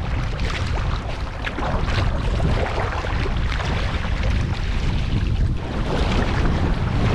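Wind buffeting the microphone over choppy open water, with a steady low rumble, while waves slap against the kayak and the paddle blades splash in and out of the water.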